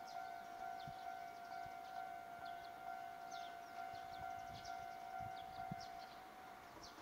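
A steady, high-pitched siren-like tone held at one pitch, which stops shortly before seven seconds in, with short high bird chirps over it.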